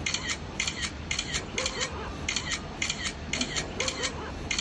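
Camera-shutter click sound effect played on a loop through a phone speaker: short double clicks repeating about twice a second.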